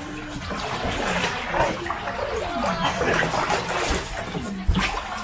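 Feet splashing and sloshing through shallow floodwater, with a sharp thump near the end.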